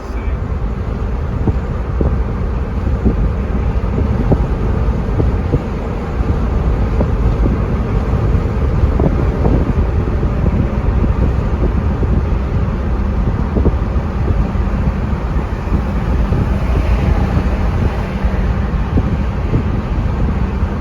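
Car driving on a road: a steady low rumble of road and wind noise.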